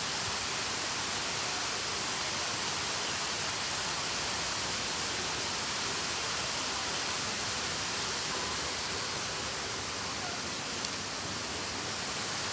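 Steady rush of running water: an even hiss that stays level throughout.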